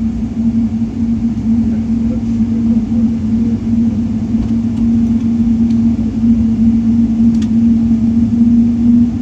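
Cabin noise inside a Boeing 777-300 airliner: a steady low rumble with a constant hum, and a faint click about seven seconds in.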